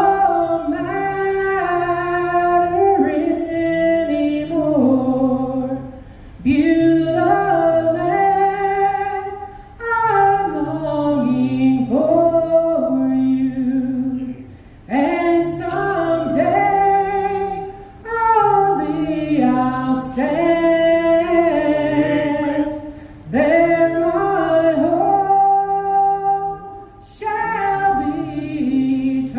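A woman singing a slow gospel song into a handheld microphone, in long held phrases with short breaks between them every few seconds.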